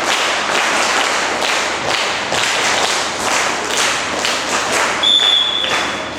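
A crowd making many rhythmic thuds and taps, with a short, steady, high whistle note about five seconds in.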